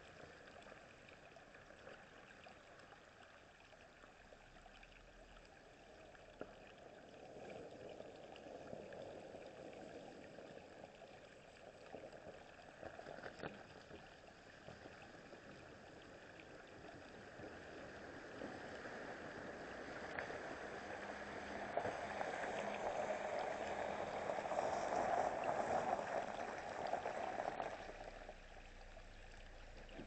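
Shallow creek running over rocks while an SUV drives through the ford, its tyres splashing through the water. The splashing grows louder as the vehicle comes closer, is loudest in the last few seconds, then drops off suddenly near the end.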